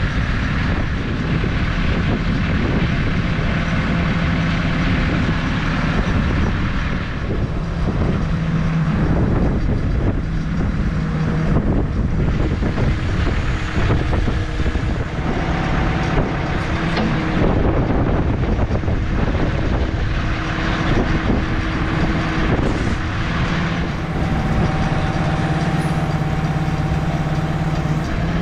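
Strong wind buffeting the microphone, with a heavy machine's engine idling steadily underneath, its hum plainer near the end.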